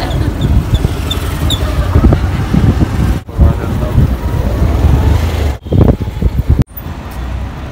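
Motor scooter engine running on a footbridge amid voices, with wind rumbling on the microphone. The sound cuts out abruptly a few times.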